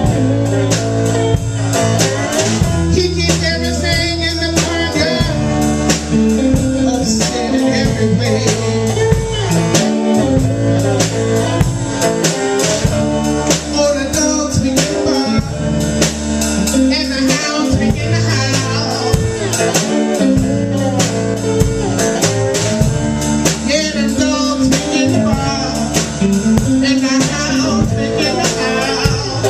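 Blues band playing with guitar, bass and drum kit, over a repeating bass line.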